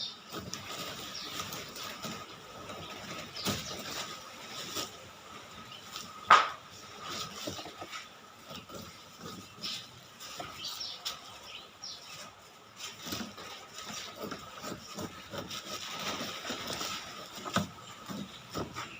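Knife cutting and peeling a pineapple's rind: irregular short crunches and scrapes, with one sharp knock about six seconds in.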